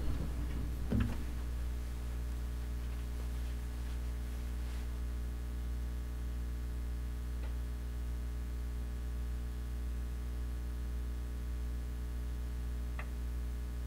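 Quiet room tone under a steady low electrical hum. There is one soft knock about a second in and two faint clicks near the end.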